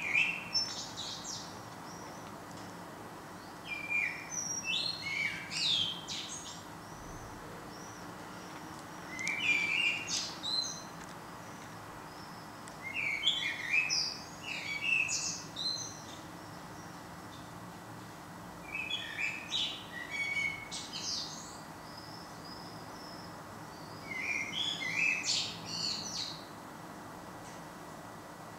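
A songbird singing in short phrases of varied high chirps and warbles, each about two seconds long, repeated about every five seconds over a steady background hiss.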